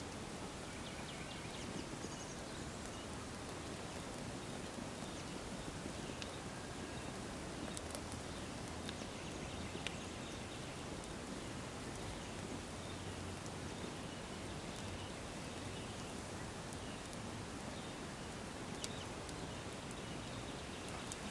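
A sneaker burning in an open fire: a steady rush of flame with a few faint crackles and pops.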